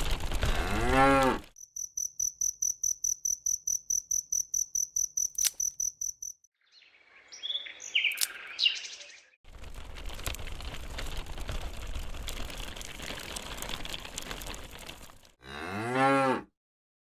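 Cow mooing twice, once about a second in and again near the end. Between the moos, an insect chirps in fast, even pulses, about six a second, for several seconds, with stretches of rustling background noise.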